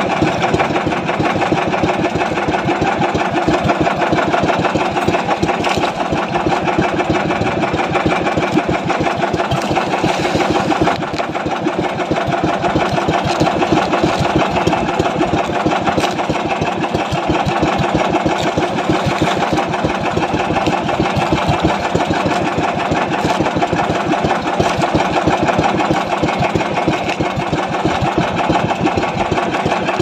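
Small boat engine running steadily at an even, fast beat.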